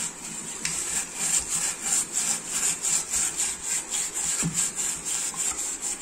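Hand scrubbing the burnt inside of a steel pot, a rough scraping rub in quick back-and-forth strokes about four a second, starting just under a second in. It is the sound of burnt residue being scoured off the pot's bottom.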